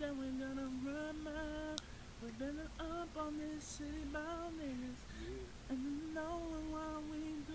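A single voice singing unaccompanied in a high register, holding long notes that slide up and down in pitch with short breaks between phrases.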